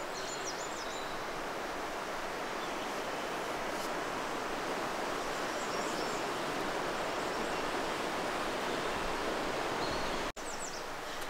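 Steady rush of flowing creek water, with small birds chirping briefly a few times over it. The sound drops out for a moment near the end, then goes on a little quieter.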